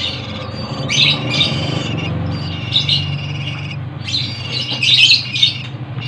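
Hand-fed banded pitta (paok pancawarna) nestlings begging for food, giving harsh, high chirping calls in about four bursts of a second or so each.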